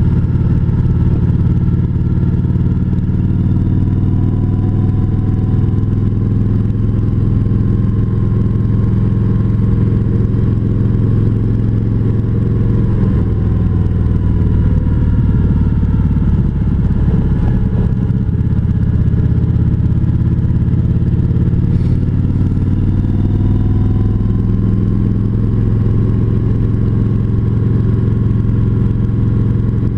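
Kawasaki Vulcan 1700 Voyager's V-twin engine running steadily under way. About halfway through, the engine note wavers and shifts for a few seconds, then settles back to a steady drone.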